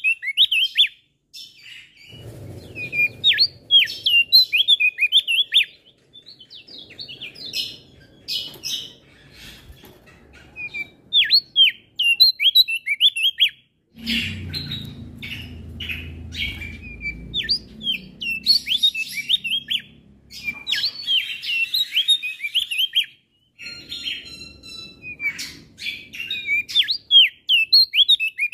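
Male opior jambul (crested white-eye) singing a busy song: rapid runs of high chirps and quick downward-sweeping notes in bursts separated by short pauses. A low rumble of background noise comes and goes beneath it.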